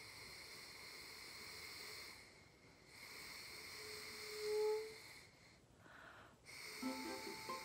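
Paper party blower blown so gently that it gives only a soft, airy hiss like wind instead of its usual squawk, in breaths of about two seconds with short pauses between; in the middle breath its reed briefly catches a faint low note. Background music comes in near the end.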